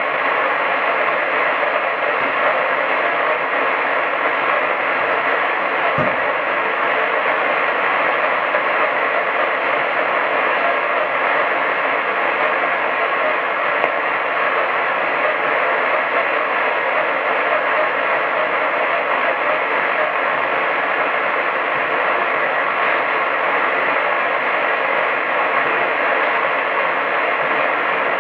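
Medium-wave radio receiver giving out a steady hiss of noise, band-limited to below about 4 kHz, with no programme audible. There is one faint low bump about six seconds in.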